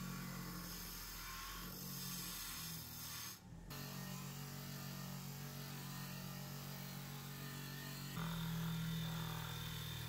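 Bench grinder with a wire wheel running at a steady hum while a sheet-metal part is pressed against the spinning wire brush, giving a rough scratching hiss as rust and old finish are brushed off. The sound dips briefly about three and a half seconds in and gets louder from about eight seconds in.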